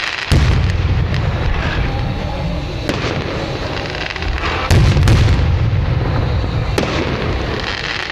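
Aerial firework shells bursting with loud booms: two big deep booms about four seconds apart, each followed by a long rolling rumble, with sharp single cracks between them.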